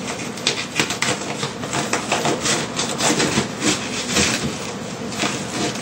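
Water-soaked, kraft-paper-faced CertainTeed fiberglass insulation batt rustling and crinkling as it is pulled by hand out of a wall cavity, with many quick crackles of the paper facing. The insulation is wet from condensation inside the exterior wall.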